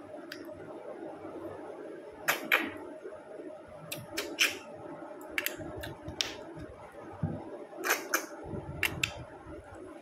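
Close-up mouth and shell sounds of snails being eaten with the fingers: about ten sharp clicks and wet smacks at irregular intervals, some in quick pairs, as the snails are handled and sucked from their shells.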